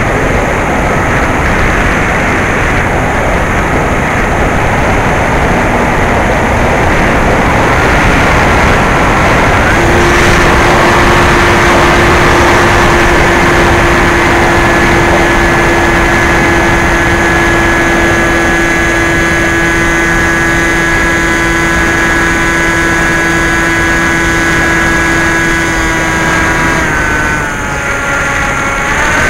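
Electric RC plane's brushless motor (NTM Prop Drive 35-30A, 1400kv) spinning a 9x6 propeller, its whine heard under heavy wind rush over the onboard microphone. The whine steadies about ten seconds in, slides down in pitch near the end and jumps back up.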